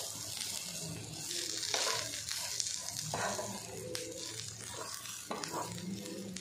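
Sliced onions frying in a little oil in a nonstick pan, sizzling steadily, while a spatula stirs and scrapes through them every second or two.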